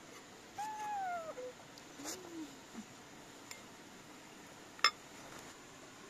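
A metal spoon clinks once, sharply, against a ceramic bowl about five seconds in, with a few fainter clicks around it. Near the start come two short calls, each falling in pitch, the second lower than the first.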